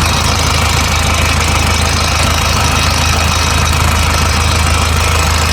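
Hitachi ZX250-5 excavator's four-cylinder Isuzu diesel idling steadily with a low, even hum, heard at the open engine compartment. It runs clean, with no blow-by coming from the crankcase.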